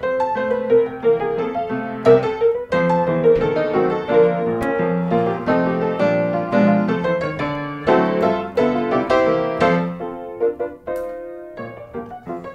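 Background piano music, a busy run of notes that thins out and softens after about ten seconds.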